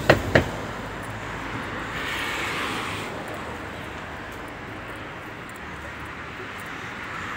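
Outdoor street ambience: a steady wash of traffic noise, with a passing vehicle swelling and fading about two to three seconds in. Two sharp knocks come at the very start.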